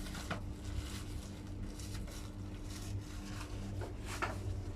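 Steady low hum of room tone, with a few faint short clicks or knocks about a third of a second in and near the end.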